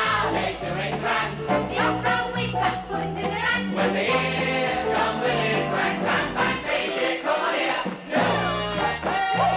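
Music: a group of voices singing together over a band backing with a walking bass line, as part of a song-and-dance number.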